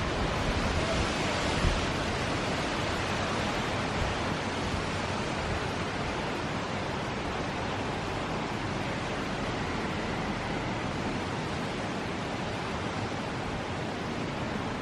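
Steady rushing noise of strong hurricane wind.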